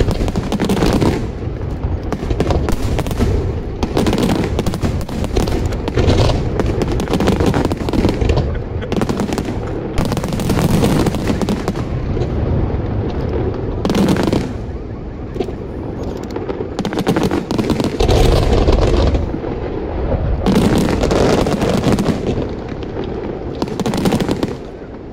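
Fireworks finale barrage: many aerial shells bursting in quick succession, a dense run of bangs and crackle with heavier clusters every second or two, easing off near the end.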